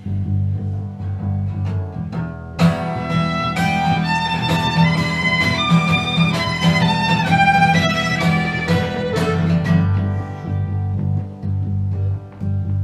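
Acoustic string-band jam: guitars strumming a steady rhythm, with a fiddle playing a melody of held notes over them from about two and a half seconds in until about ten seconds in.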